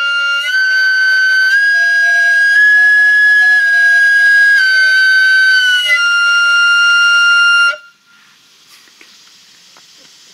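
A flute-like wind instrument playing a slow run of long held notes, each about a second, stepping up in pitch and then back down. It stops abruptly about three-quarters of the way through.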